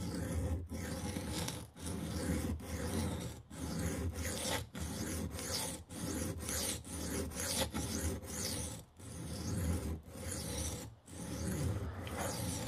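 Knife blade of 440C steel stroked back and forth across a very coarse, cheap sharpening stone, a gritty scrape on each pass, about one to two passes a second with short breaks between. It is early in the sharpening, before a burr has formed.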